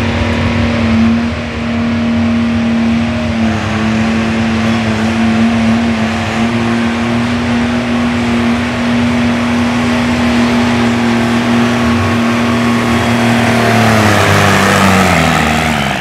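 Diesel garden pulling tractor's engine running hard at a steady high pitch under full load as it drags a weight-transfer sled. Its revs drop away over the last two seconds.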